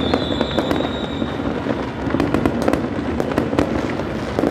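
New Year fireworks and firecrackers going off all around: a continuous, irregular rattle of pops and bangs, densest about two to three seconds in. A thin high whistle fades out about a second in.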